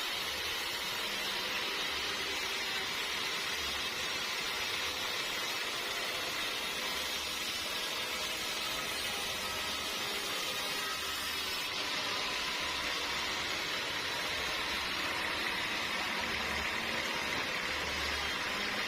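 Sawmill machinery running steadily: a continuous, even noise with a low hum that comes and goes.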